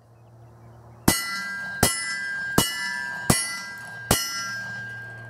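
Five 9mm Glock pistol shots fired in steady succession at steel targets, about three quarters of a second apart, each hit followed by the ringing of the struck steel plates.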